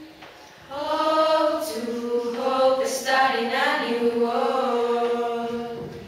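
A group of young voices singing a line of a song together. The singing comes in under a second in and fades out near the end.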